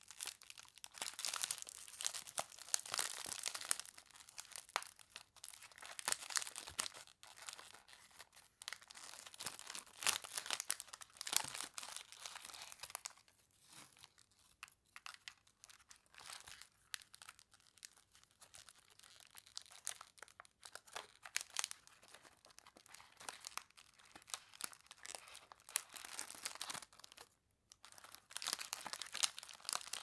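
Clear cellophane candy bag crinkling in the hands as its gathered neck is handled and tied with a ribbon. Dense, irregular crisp crackles that ease off through the middle and stop for a moment near the end.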